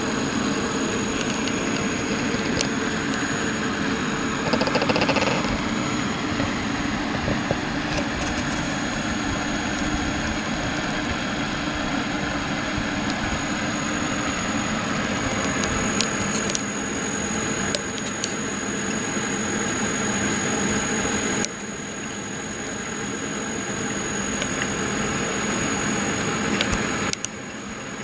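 Yaskawa SGMG-03A2AB AC servo motor running on a test bench: a steady hum with a thin, high-pitched whine over it. The sound changes abruptly twice, about 21 and 27 seconds in.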